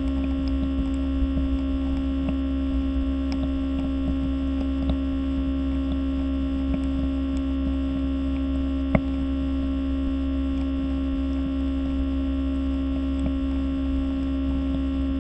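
Diffuser heard through a contact microphone: a steady hum made of several fixed tones, with faint scattered crackles and one sharp click about nine seconds in.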